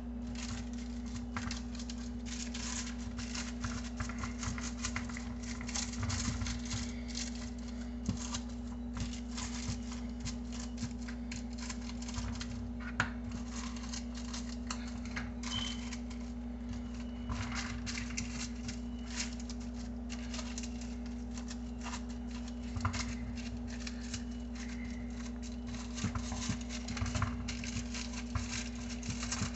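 A spoon pressing and spreading soft mashed-potato dough in a parchment-lined pan: irregular light taps and scrapes, with the parchment paper crinkling. A steady low hum runs underneath.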